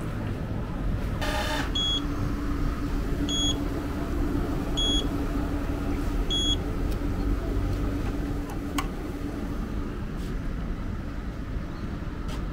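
Fresh-squeezed orange juice vending machine at work: a low mechanical rumble with a steady motor hum. About a second in comes a brief hiss, then four short, high electronic beeps about a second and a half apart.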